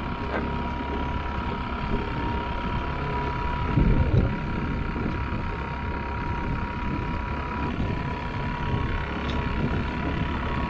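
Steady hum of a boat's motor with wind buffeting the microphone, and a couple of low thumps about four seconds in.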